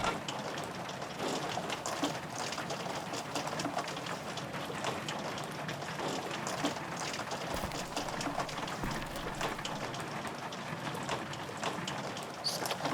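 Rain pattering steadily on window glass, many small drops tapping over a constant hiss.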